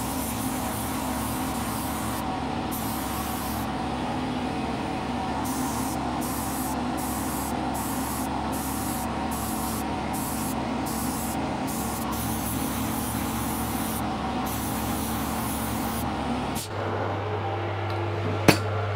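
DeVilbiss SRi Pro air spray gun hissing as it sprays clear lacquer, the hiss cutting in and out many times as the trigger is pulled and released, over a steady workshop ventilation fan. Near the end the sound changes to a steady low hum with a single sharp click.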